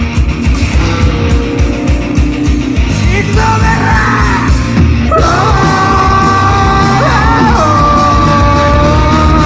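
Live rock band playing loudly, drums and guitars under a vocalist who shouts and sings, then holds one long note through the second half, stepping up in pitch once partway through.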